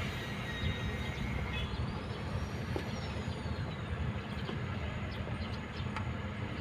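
Kobelco excavator's diesel engine running with a steady low rumble. From about two seconds in, a faint high whine rises and then falls away over about two seconds.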